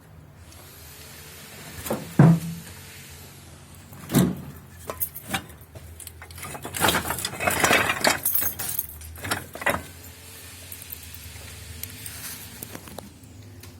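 Hard metal objects clinking and clattering as they are handled and knocked together: a couple of sharp knocks, then a busy run of jangling clinks in the middle.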